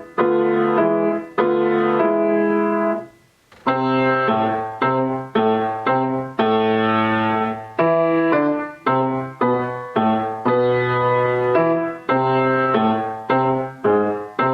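Piano playing a slow piece in struck chords, each ringing and fading. There is a brief break about three seconds in, then a longer run of chords about one a second.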